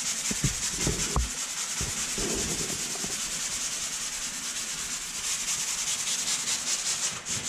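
Fine-grit 3M sanding sponge rubbed by hand over dried joint compound on drywall in quick back-and-forth strokes, a steady scratchy hiss, with a few soft knocks in the first second or so. It is feathering down the slight hard edge where the compound meets the existing wall.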